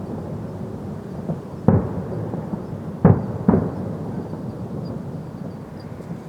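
Fireworks shells bursting at a distance: three booms, the second and third close together, each rolling off in a rumbling echo, over a steady low background rumble.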